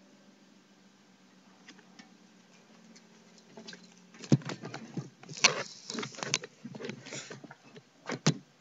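Irregular clicks, knocks and rustles close to the microphone, like hands handling the recording gear, coming thick from about halfway through, with two sharp knocks near the end. Before that only a faint low hum.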